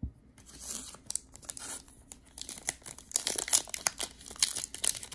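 Foil trading-card pack wrapper being crinkled and torn open by hand, the crackling getting busier and louder from about halfway through. A soft knock at the very start.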